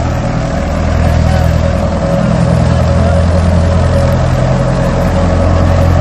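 Wheat threshing machine running steadily at work: a constant low engine drone with a steady hum over it.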